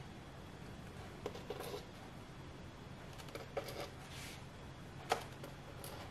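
Faint, short scratches and ticks of a heat-erasable pen marking small letters on a painted quilt board, a handful of strokes spread through, over a low steady hum.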